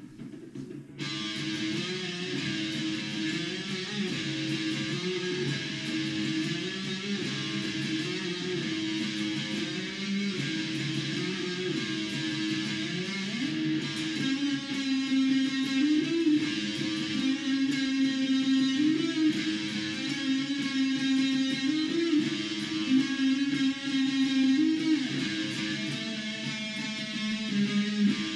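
Electric guitar played live, a strummed rock riff that comes in about a second in and gets a little louder about halfway through.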